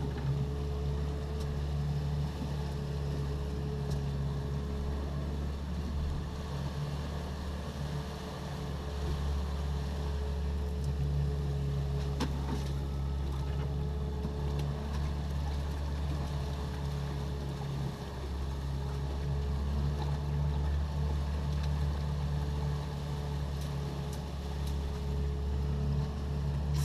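Boat's outboard motor running steadily with a constant low hum, with a light knock about twelve seconds in.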